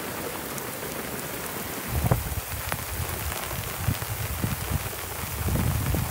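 Heavy rain pelting the open sea surface around an anchored sailboat: a dense, steady hiss of countless raindrops hitting the water. From about two seconds in, irregular low rumbling buffets join it.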